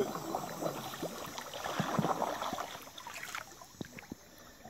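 Water splashing and sloshing around a swimmer holding onto the stern of a paddled inflatable kayak, an uneven run of splashes that is louder over the first few seconds, then eases off.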